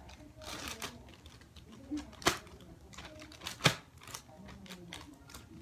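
A small plastic zip-top bag being opened and handled: light plastic rustling with two sharp clicks about a second and a half apart.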